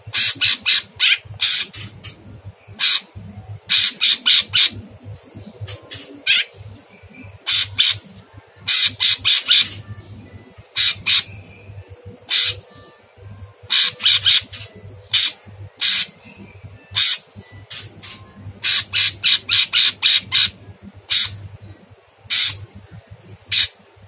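Caged male orange-bellied leafbird (cucak cungkok) singing a harsh, rough song of short rasping notes fired in rapid bursts of two to six, with short pauses between bursts.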